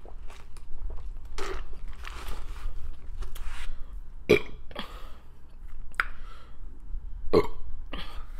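A person burping after eating: a few separate burps, the loudest about four seconds and about seven seconds in, with a softer one earlier and small mouth clicks between them.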